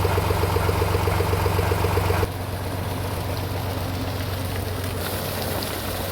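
An engine running, with a fast, even pulsing over a low hum for about the first two seconds, then an abrupt change to a steadier noise.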